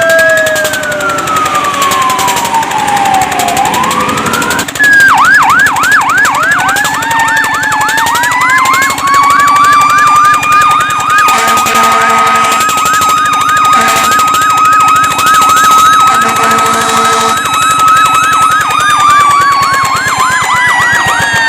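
Fire truck sirens: a wail gliding down and back up, then from about five seconds in a fast yelp at about four cycles a second over a second wail that rises, holds a steady high pitch and falls near the end. Two short horn blasts sound around the middle.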